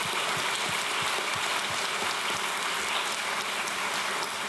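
Audience applauding: a steady, dense clapping of many hands.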